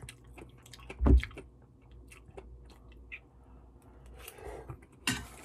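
Close-miked chewing of a mouthful of malatang, with small wet crackles throughout. There is a louder knock about a second in and a sharp clatter near the end.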